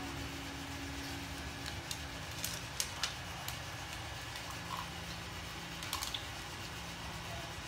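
A Belgian Malinois eating raw chicken feet on a tile floor: a handful of sharp, scattered clicks and taps as it picks up, mouths and steps around the food, over a steady low hum.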